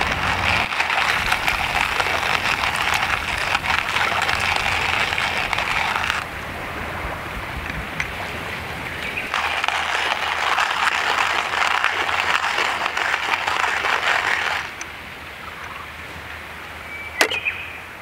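Manual stainless-steel coffee grinder grinding beans by hand crank: a steady gritty crunching, loud in two long stretches with a quieter spell between. It eases off about two thirds of the way through, and a single sharp click comes near the end.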